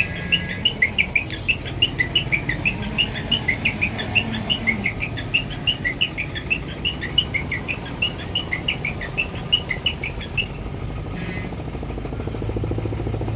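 A bird chirping rapidly: a long run of short, high notes, several a second, for about ten seconds, then stopping.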